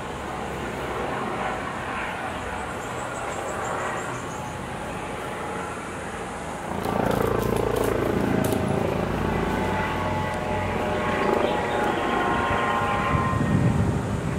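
Police helicopter flying overhead, its rotor and engine noise steady, then growing louder about halfway through as it comes closer.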